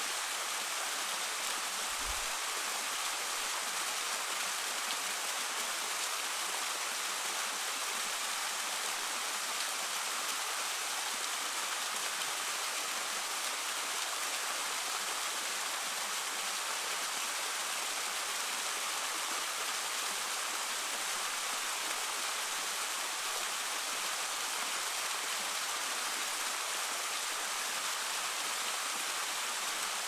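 Stream water flowing with a steady, even rush that does not change.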